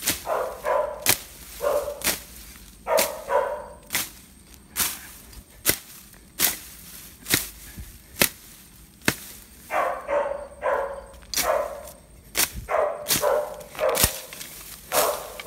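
A machete slashing through grass and weeds: sharp swishing cuts, a little under one a second. Shorter mid-pitched sounds come between some of the strokes.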